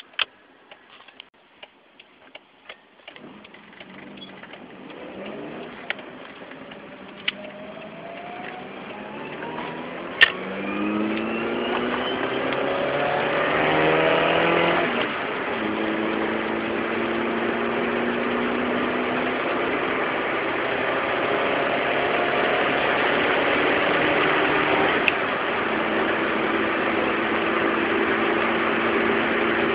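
A car pulling away and accelerating, with a humming tone that rises in pitch as speed builds, then holds steady at cruising speed. The recording is made to let the abnormal noise of a wheel hub be heard. A few sharp clicks sound in the first seconds before it moves off.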